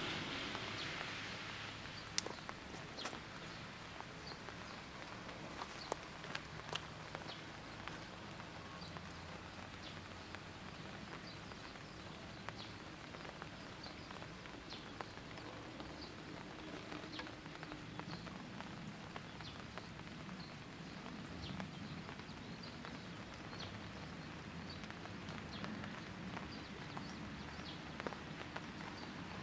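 Light rain dripping on the foliage: scattered sharp ticks of drops, a few a second and irregular, over a faint steady low background rumble.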